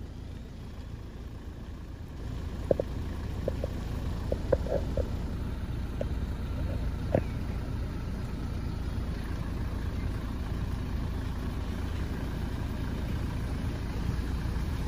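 Kenworth prime mover's diesel engine idling, a steady low rumble that grows louder about two seconds in, with a few brief clicks between about three and seven seconds.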